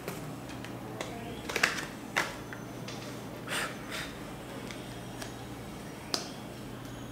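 A clear plastic phone case being handled and fitted onto an iPhone 11 Pro Max: several sharp clicks and taps of plastic against the phone, the loudest about a second and a half in. A steady low hum runs underneath.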